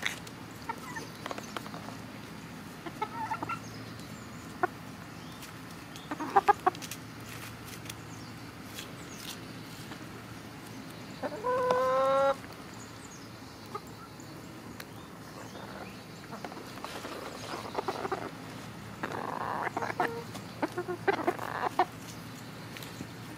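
Chickens clucking softly close by, with a few sharp clicks between the clucks. Just past halfway one chicken gives a single drawn-out call of about a second, the loudest sound.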